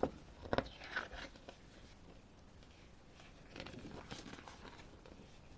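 Quiet paper handling: a glossy photo booklet being handled and its pages turned, with a few sharp crinkles in the first second and a softer run of rustling about four seconds in.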